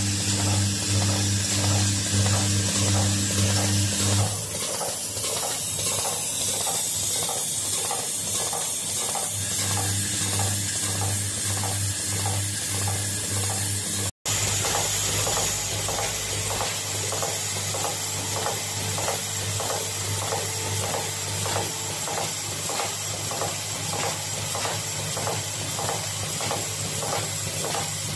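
Automatic terminal-lug brazing machine running: a regular mechanical clicking a few times a second over a high hiss, with the low hum of a vibratory bowl feeder that stops for a few seconds and then resumes. The sound drops out for an instant about halfway through.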